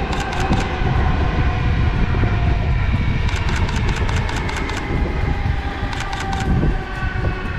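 Audi TT RS's five-cylinder engine running at a distance over a low rumble, its tone slowly falling in pitch. Three bursts of rapid camera-shutter clicks fire through it, from a camera shooting in burst mode.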